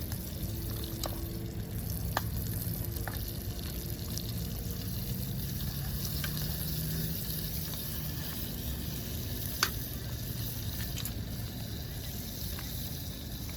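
Wood campfire burning with a steady hiss and a few sharp, scattered pops and crackles.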